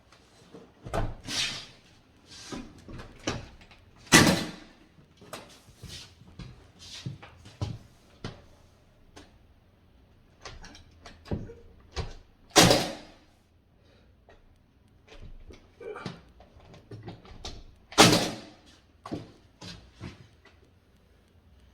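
Nail gun shooting nails into wooden door stop molding: a string of sharp shots at irregular intervals, the three loudest about 4, 12 and 18 seconds in, with lighter knocks and clicks in between.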